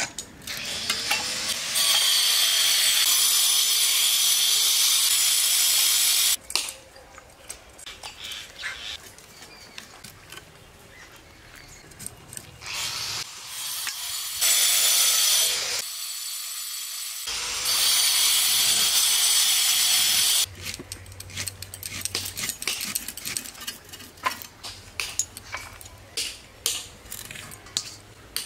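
Food frying in hot oil in a pan, sizzling loudly in three stretches that start and stop abruptly. Between them, and through the last part, there are light clicks and scrapes of a utensil stirring.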